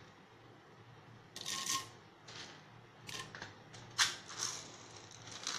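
Chana dal (split chickpeas) tipped into a nonstick pan of hot oil: a few short crackling bursts as the lentils land and sizzle, with a sharp click about four seconds in.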